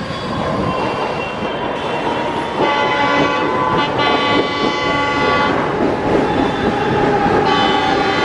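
Train horn sounding two long chord blasts, the first about three seconds long and the second starting near the end, over the steady running noise of a passing train.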